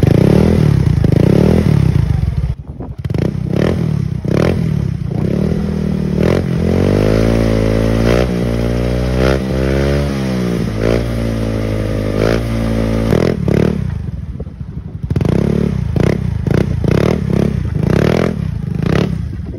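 Yamaha Mio Soulty scooter's single-cylinder four-stroke engine running through an Apido V4 aftermarket exhaust canister, revved for a sound check. Short throttle blips at first, then a stretch of held revs with pitch rising and falling several times in the middle, then more quick blips.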